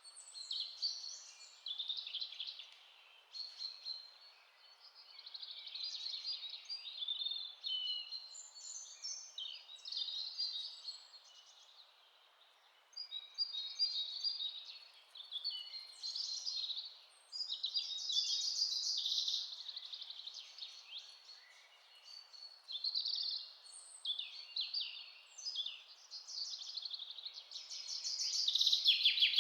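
Several songbirds chirping and singing in short, overlapping phrases and trills over a faint, steady background hiss.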